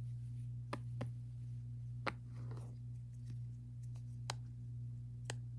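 Silicone Pop-It bracelet bubbles being pressed: about six short, scattered pops at irregular intervals, over a steady low hum.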